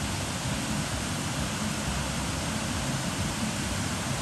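Steady, even rush of water pouring over a waterfall.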